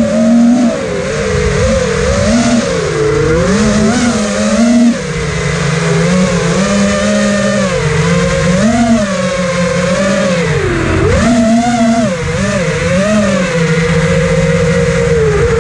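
Multirotor drone's motors and propellers whining loudly, the pitch rising and falling every second or so as the throttle changes.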